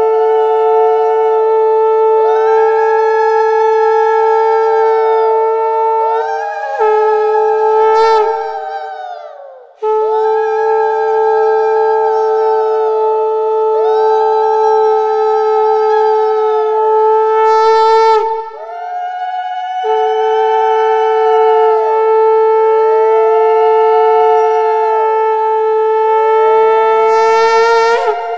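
Conch shell (shankha) blown in long held blasts: a steady note with a second, wavering tone arching above it, broken by three short gaps.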